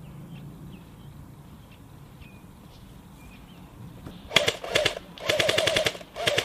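Airsoft gun firing on full auto in three rapid bursts of clicking shots, starting about two-thirds of the way in; the last burst is short.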